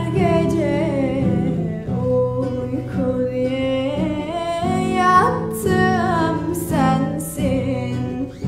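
A young woman's solo voice singing a slow Turkish song in long, sliding, ornamented lines, accompanied by a plucked acoustic guitar.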